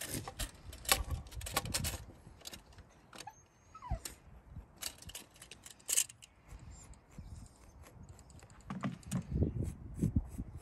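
Tape measure and pencil handled against a pressure-treated pine board: scattered light clicks and ticks, and the scratch of a pencil marking the wood. A short falling whine is heard about four seconds in.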